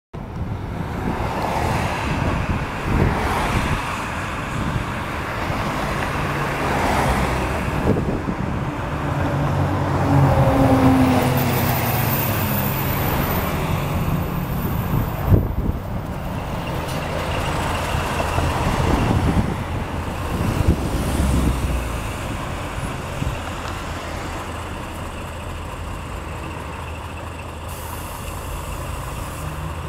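Streetcar running in street traffic: a steady low rumble, with an electric motor whine falling in pitch around ten seconds in as the car slows, and a sharp click about halfway through.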